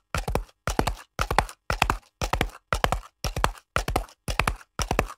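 Horse hoofbeats at a gallop: clusters of three or four quick hoof strikes repeating about twice a second, with silence between strides.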